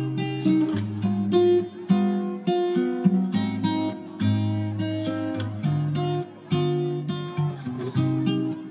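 Background music of strummed and plucked acoustic guitar, changing chords about twice a second.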